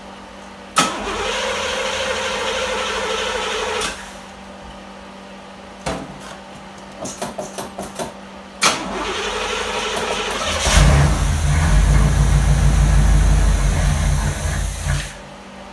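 1982 Pontiac Trans Am's V8 being cranked over on a cold start after sitting about a month, with its battery on a charger. The starter cranks for about three seconds without a start, then comes a run of quick clicks, and a second crank about nine seconds in. About ten seconds in the engine catches, runs for some four seconds and then dies.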